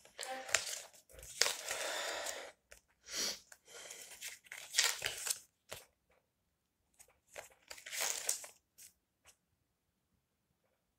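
Paper rustling and crinkling as a small paper booklet is handled and its pages flipped, in several bursts that stop about nine seconds in.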